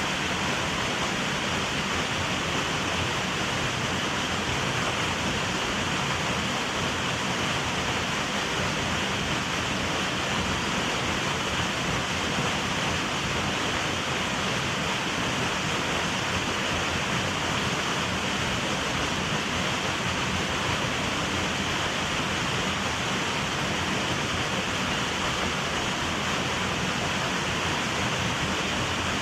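A small waterfall rushing steadily: an even, unbroken noise of falling water.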